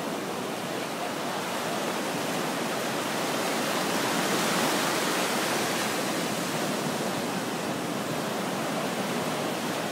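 Surf breaking and washing through the shallows, a steady rushing hiss that swells a little around the middle.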